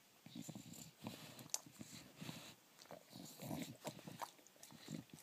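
English bulldog sniffing and chewing at cracker crumbs on the carpet: a run of short, noisy breaths through its nose, broken by scattered clicks of its mouth.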